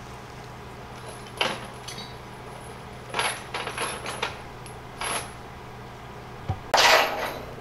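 Metal rigging chain and hooks clinking and jangling in several short bursts, the loudest near the end, over a low steady engine hum.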